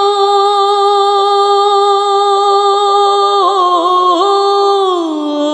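A single voice sings a Bengali naat unaccompanied, holding one long note. A little past halfway the note wavers in a brief ornament, and near the end it slides down to a lower held note.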